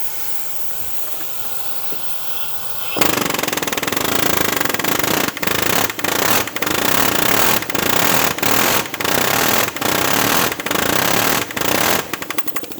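Pneumatic air hammer rattling against a seized EGR valve in a run of bursts, starting about three seconds in and stopping and restarting about ten times, with a quieter, faster rattle near the end.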